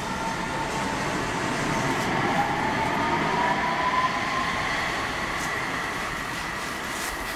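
OC Transpo O-Train light-rail vehicle (Alstom Citadis Spirit) moving past the platform: steady rumble and wheel noise with an electric motor whine that rises slightly in pitch.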